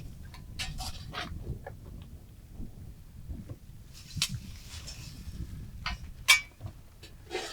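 Scattered clinks and knocks of kitchen dishes and utensils, the sharpest clink about six seconds in, over a low background rumble.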